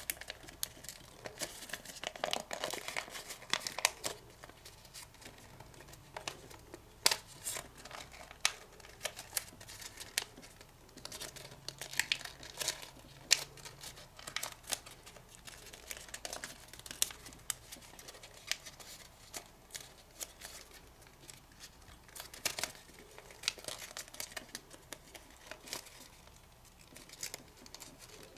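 Kami origami paper crinkling and crackling as fingers fold, pinch and crease it, in irregular short crackles, some sharper than others.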